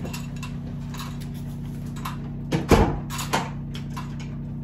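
Front door clicking and then shutting with a knock a little past halfway, with a smaller knock just after, over a steady low hum.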